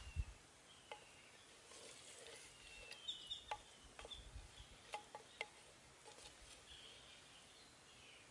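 Wooden spatula stirring broth in an earthen clay pot, knocking faintly against the pot half a dozen times, with a few faint bird chirps.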